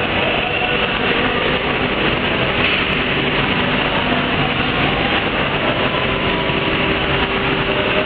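Steady, even mechanical running noise of a roti-making production line with its conveyor belts, with a faint steady tone running through it.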